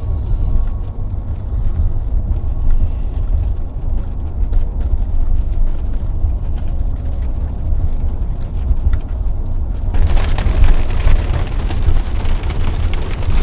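Low rumble of a vehicle being driven, heard from inside the cabin. About ten seconds in, a loud hiss with fine crackling joins it.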